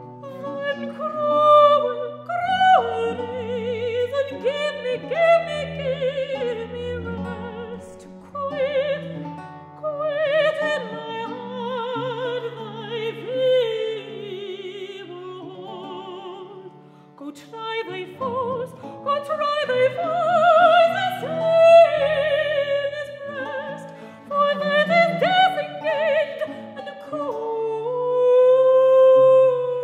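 Mezzo-soprano singing a baroque English song with vibrato over a continuo of theorbo and viola da gamba. She pauses briefly about halfway through, then holds a long note near the end.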